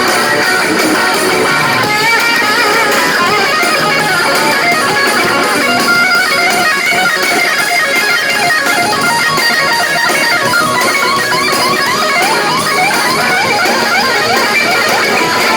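Rock band playing live, led by guitar. The guitars are strumming, with quick sliding guitar runs through the middle and later part.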